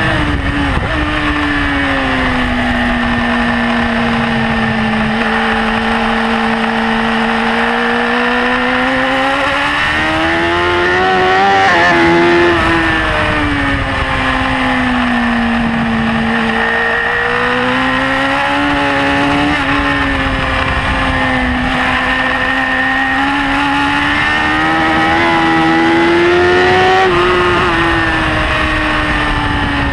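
BMW S1000RR's inline-four engine at race pace, heard from on the bike, its pitch climbing under acceleration and dropping as it slows, peaking about twelve seconds in and again near the end.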